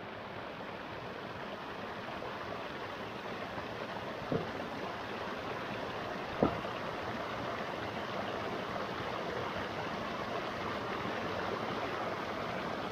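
Steady rush of a shallow stream flowing over rocks, with two short knocks about four and six and a half seconds in, the second louder, as flat stones are handled in the water.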